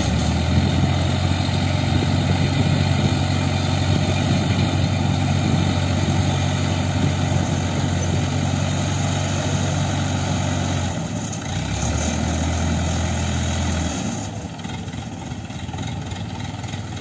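Engine of a tractor-based mobile crane running steadily. About eleven seconds in its note drops lower, and about three seconds later it falls back to a quieter, lower running.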